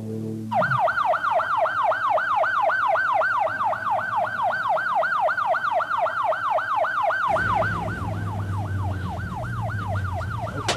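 Ambulance siren on a fast yelp, about four rising-and-falling sweeps a second, starting about half a second in. Past the middle the siren turns fainter and a low engine and road rumble comes in beneath it.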